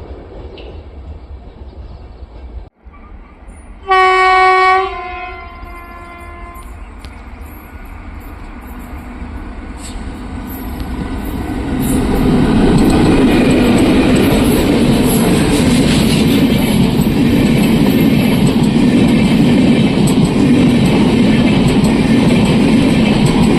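A train horn gives one loud blast of about a second, its echo fading behind it. Then a train approaches, growing louder until it passes at full loudness with the rumble and clatter of its wheels on the rails.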